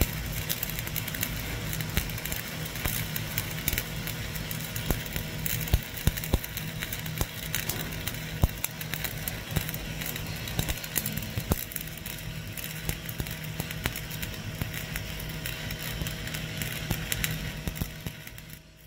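Shielded metal arc (stick) welding arc crackling steadily, with frequent sharp pops, as the electrode burns along a vertical fillet weld. A steady low hum runs underneath. The sound fades out near the end.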